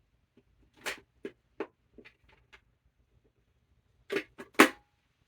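Hard plastic helmet clicking and knocking as it is handled, a run of light taps, then a few sharper clacks about four seconds in. The loudest clack fits the helmet's magnetic closure catching shut.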